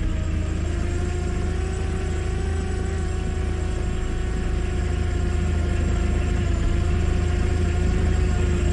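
Drone's motors and propellers humming steadily, the pitch wavering slightly, over a low rumble.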